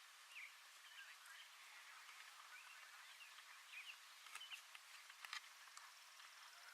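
Near silence outdoors with faint, scattered bird chirps and a few faint clicks in the second half.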